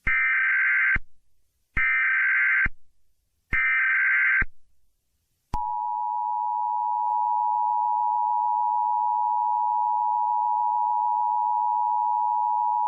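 Emergency Alert System SAME header: three short bursts of buzzy data tones, about a second each with short gaps between them, followed by the steady two-tone EAS attention signal, which starts about five and a half seconds in and keeps going.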